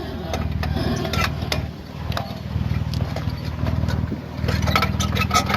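Jeep Wrangler JK engine running steadily, with repeated short clunks and clicks over it, thickest from about four and a half seconds in: the clunk the owner gets when the Jeep is in four-wheel drive, cause unknown.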